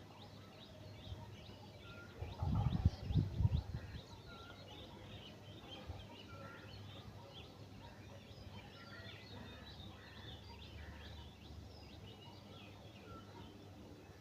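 Many wild birds chirping and calling together in a dawn chorus, with one short whistled note repeating every second or two. A low rumble, like wind or handling on the microphone, comes about two to four seconds in.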